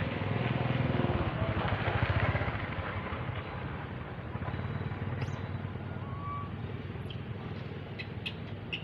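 A motor vehicle engine rumbling steadily, louder about one to two and a half seconds in, then easing off. A few short high chirps and clicks come near the end.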